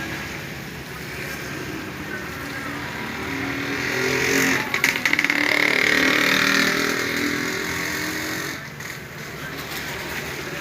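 A motor vehicle's engine that grows louder to a peak about five to seven seconds in, then drops away sharply about eight and a half seconds in.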